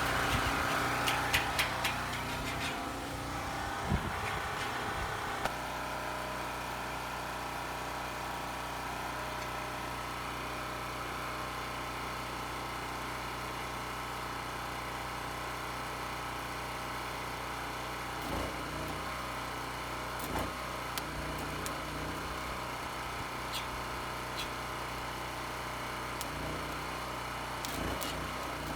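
A small engine running steadily, with several sharp clicks and knocks in the first few seconds and a few more near the end.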